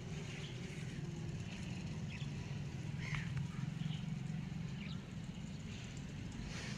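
A steady low rumble with a few short, high bird chirps scattered through it, about one every second or so.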